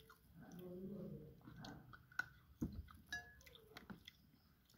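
Quiet, close mouth sounds of someone eating ripe mulberries: soft chewing and lip smacks, with a few sharp clicks in the second half.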